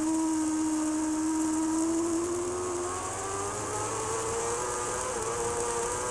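BMW superbike's inline-four racing engine at high revs, its note climbing steadily as the bike accelerates out of a corner, with a brief dip about five seconds in, over a constant rush of wind.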